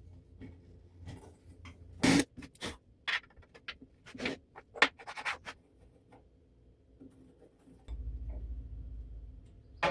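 Scattered knocks, clicks and scrapes of parts and tools being handled on a workbench, with a low steady hum for about two seconds near the end.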